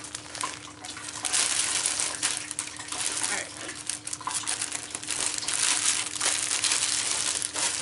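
Thin plastic packaging bag crinkling and rustling as it is handled and crumpled, in uneven swells, over a faint steady hum.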